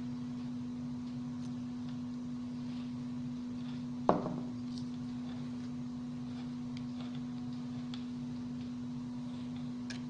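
A steady low hum, with one sharp click about four seconds in and a few faint ticks after it.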